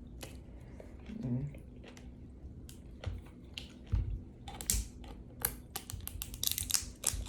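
Light clicks and taps of a cocktail sauce container's cap being worked open by hand, scattered at first and coming quicker near the end, with a few dull knocks in the middle.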